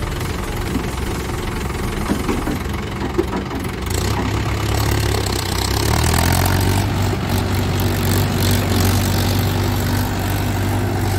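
Mahindra Yuvo tractor's diesel engine running steadily, getting louder about four to six seconds in as the tractor pulls away with its trolley loaded with mud.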